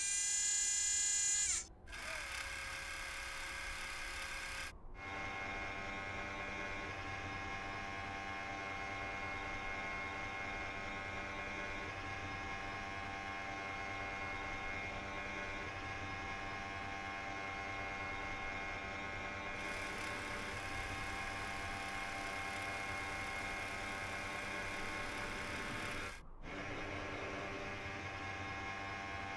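Animated sound effects of the Curiosity rover's electric motors. A short whir rises in pitch and cuts off abruptly, a brief steady whine follows, then a long steady electric hum that drops out for a moment near the end.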